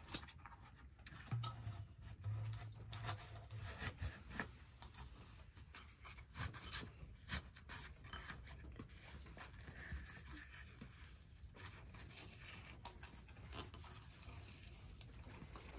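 Crinkling and rustling of a stiff, dried piece of hide being handled, stretched over the mouth of a clay pot and tied down with cord, with many small scattered clicks and taps.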